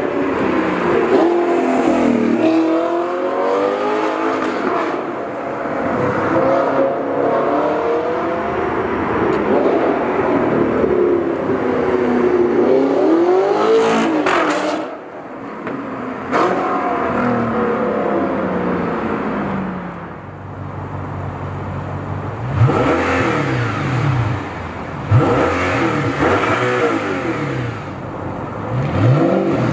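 Audi R8's 4.2-litre V8 through an Fi Exhaust valved exhaust, accelerating and easing off under way and passing close by about halfway through. In the last several seconds, with the exhaust valves open, it gives several sharp revs that climb and drop quickly.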